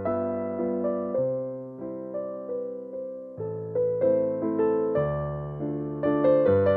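Background piano music: a slow keyboard piece of struck chords and melody notes, each note fading after it is played.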